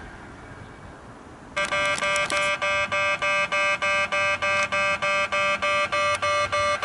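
Level-crossing warning bell starts suddenly about a second and a half in and rings in a rapid, even repetition, warning that a train is approaching.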